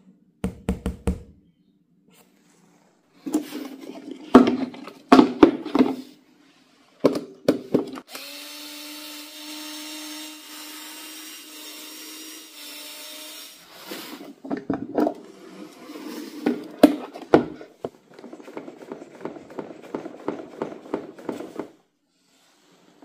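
Knocks and clatter of hard parts being handled, with a small electric motor running at a steady pitch for about six seconds near the middle, then a fast rattle near the end.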